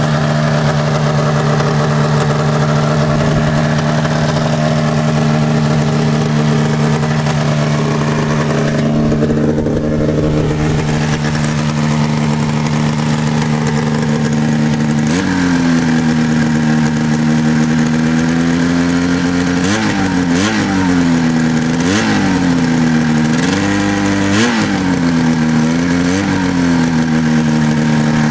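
1988 Arctic Cat Cougar 500 snowmobile's Suzuki two-stroke engine idling steadily, then, a little past halfway, revved: the pitch steps up and several quick throttle blips rise and fall.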